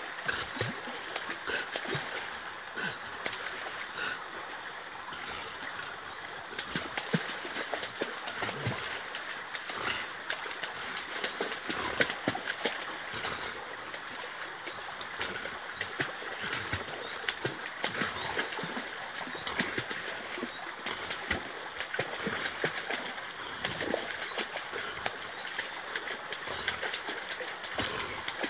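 Staffordshire bull terrier thrashing in lake water as she paws and bites at a tree branch: continuous splashing with irregular sharp slaps of water, the louder ones about halfway through.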